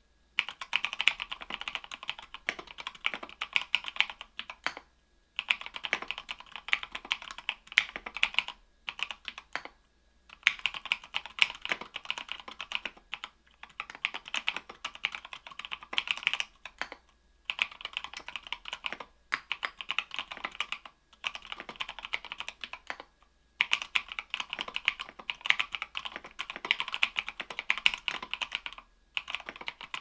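Typing on a mechanical keyboard with lubed Kailh Pro Purple tactile switches, an aluminium plate and OSA keycaps. Quick keystrokes come in runs, with short pauses every few seconds.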